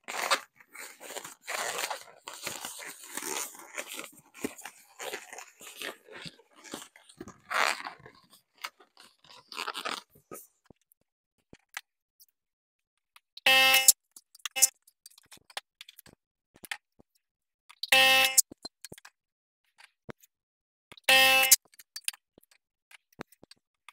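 Inflated latex twisting balloons being handled and rubbed together: crackling, rubbery rustling for about ten seconds. Then come three short squeaks a few seconds apart, from the latex being twisted.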